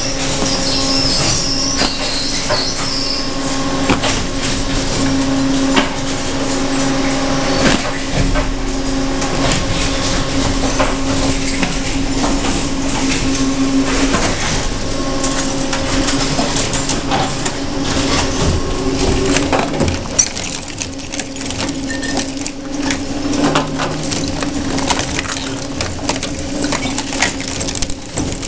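Industrial twin-shaft shredder and its feed conveyor running: a steady motor hum under irregular cracks, knocks and crunches as small metal items are torn up between the cutter discs. A high squeal sounds in the first few seconds.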